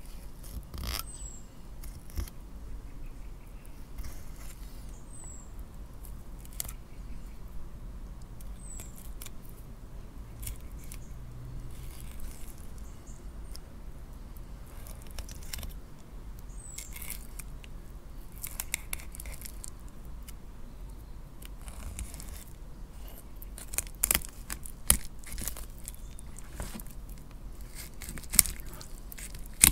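Fillet knife working along a cod's rib cage and backbone, clicking and ticking as the blade runs over the bones, with a few louder clicks near the end.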